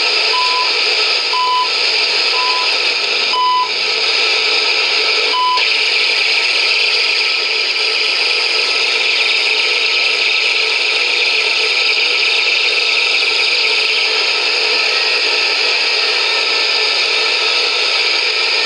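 Shortwave reception of the CHU Canada time signal on 14670 kHz through an HP 8920A service monitor's speaker: steady receiver hiss and static with short 1 kHz beeps about once a second for the first five seconds or so, then only the hiss.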